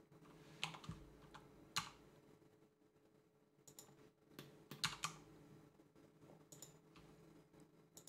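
Faint, scattered clicks of a computer keyboard and mouse, a dozen or so irregular taps with a quiet stretch near the middle, over a low steady room hum.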